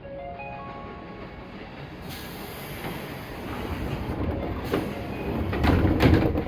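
Door chime of a 205 series 1000-subseries train sounding a short rising run of tones. Then the pneumatic doors hiss and bang, with a thud about 4.7 s in and heavier bangs near the end, as they bounce against a passenger rushing aboard.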